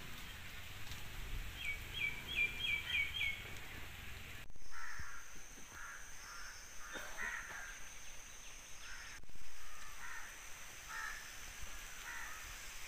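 Outdoor ambience with birds calling: a quick run of about six high chirps about two seconds in, then scattered shorter calls.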